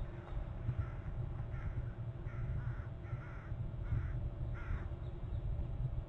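A bird gives six short calls in quick succession, about two thirds of a second apart, then stops about five seconds in. A steady low rumble runs underneath.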